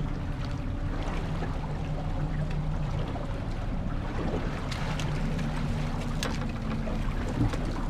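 Small boat's outboard motor idling, a steady low hum, under wind on the microphone and water lapping, with a few sharp clicks about five to six seconds in.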